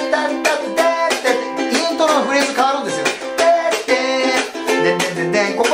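Ukulele strummed in a steady eight-beat chopping rhythm, about four strums a second, changing from a C chord to an F chord partway through. A voice sings the melody along with it.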